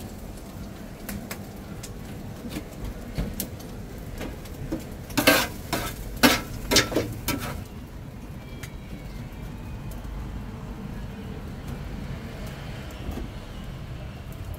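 A quick cluster of sharp metallic knocks and clatters about five seconds in, from kitchen tools handled at a charcoal grill and steel griddle, over a steady low rumble with a few lighter clicks.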